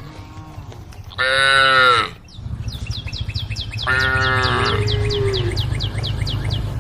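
Cattle calling: a loud, short, high bawl about a second in, then a lower call that falls in pitch about four seconds in. Under them a low rumble and a rapid run of high chirps, about three a second, start a little after two seconds.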